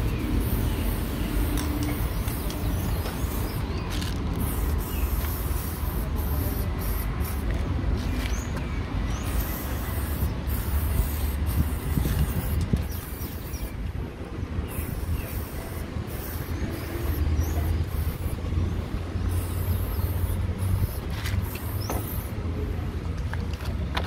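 Aerosol spray-paint can hissing in repeated bursts of varying length, stopping and starting many times, over a steady low rumble of vehicle traffic.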